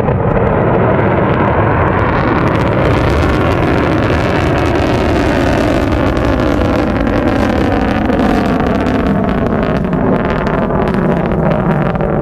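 Minuteman III missile's solid-fuel first-stage rocket motor burning in the climb after launch: a loud, steady rushing noise with a crackle that grows in the last few seconds.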